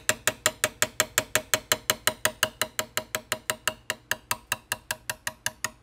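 Rapid, even light hammer taps on a steel punch, about six a second, driving a rusted band spring out of a Krag-Jorgensen rifle's wooden forend. Each tap has a slight metallic ring.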